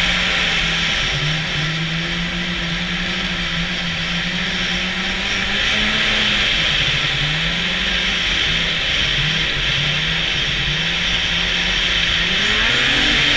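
Snowmobile engine running along a trail, its pitch wavering up and down with the throttle and climbing near the end, over a steady hiss.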